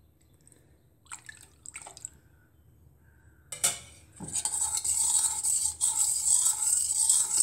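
Milk poured quietly from a ladle into a stainless steel bowl, then, from about four seconds in, a metal spoon stirring the milk and yogurt, scraping steadily against the bowl.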